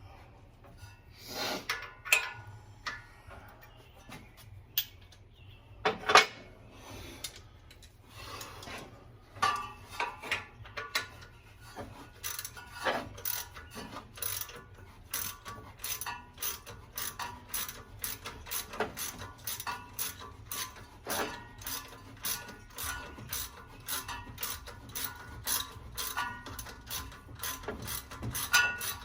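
Hand ratchet wrench clicking in quick, regular strokes as a bolt is worked off the front of a Ford 302 V8, after a few separate sharp metal knocks in the first several seconds.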